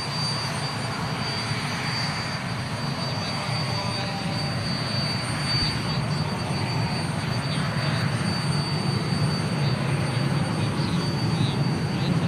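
Cessna A-37 Dragonfly's twin General Electric J85 turbojets running as the jet rolls along the runway: a steady high-pitched whine over a broad rush, slowly growing louder.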